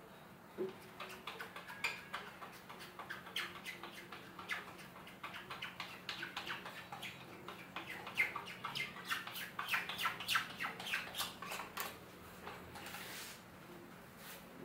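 Quick squeaky rubbing strokes of an applicator working frame adhesive into stretched screen mesh along an aluminum frame. Many short squeaks and scrapes run until about twelve seconds in, followed by a brief rustle.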